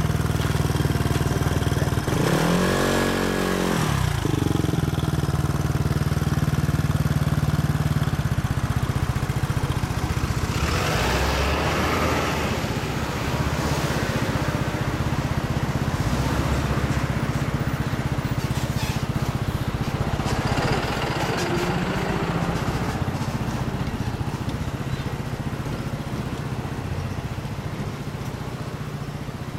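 2011 Yamaha Cygnus-X scooter's single-cylinder engine running through a JOSHO1 Hyper Racing aftermarket exhaust, idling steadily. A quick throttle blip about two to four seconds in makes the pitch rise and fall, and there are two further surges in the engine sound later.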